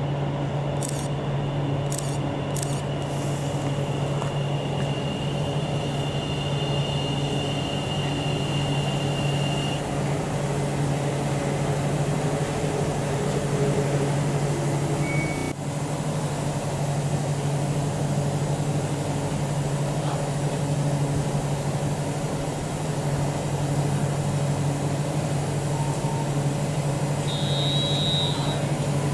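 NS Sprinter electric train pulling in and stopping at a platform over a steady low hum, with a high steady squeal, typical of its brakes, that ends about ten seconds in. A short high beep sounds near the end.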